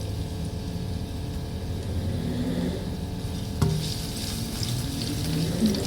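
Chopped garlic sizzling in hot oil in a pan as it is stir-fried, the sizzle growing louder a little past halfway, with a single sharp knock just before that.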